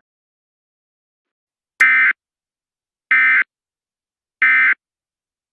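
Three short bursts of Emergency Alert System digital data tones, the end-of-message code that closes an alert, each about a third of a second long and about 1.3 seconds apart, beginning about 2 seconds in.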